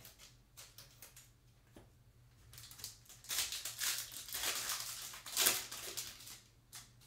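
Foil trading-card pack handled, then torn open and crinkled as the cards are slid out of the wrapper, the crackling loudest about five and a half seconds in.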